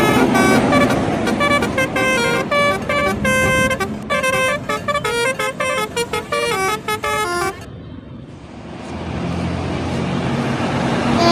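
Bus telolet horn playing a fast tune of short notes that jump from pitch to pitch. The tune cuts off suddenly about two thirds of the way in, leaving a low rumble that grows louder.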